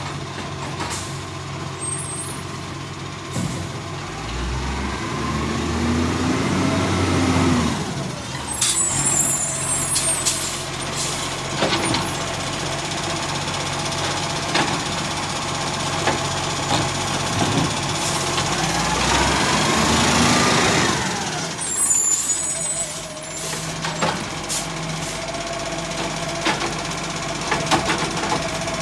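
Acco side-loader garbage truck pulling up in two moves: each time its diesel engine revs up and the air brakes let out a loud hiss as it stops, about a third of the way in and again about three-quarters through. After the second stop it idles with a steady whine and some sharp clanks.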